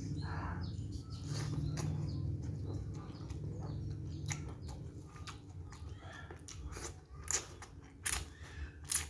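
Close-up eating sounds: chewing a mouthful of rice, then from about seven seconds in, sharp wet smacks and slurps as noodles are sucked in. A steady low hum runs underneath.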